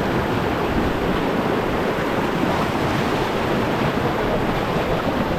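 Fast-flowing river water rushing steadily, a constant even wash of white water.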